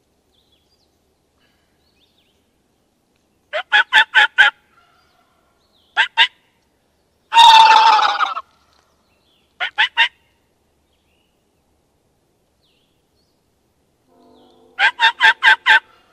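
Turkey calling in short runs of quick, sharp yelping notes: five about four seconds in, single pairs around six and ten seconds, and six near the end. A longer, rougher, louder call comes about seven and a half seconds in.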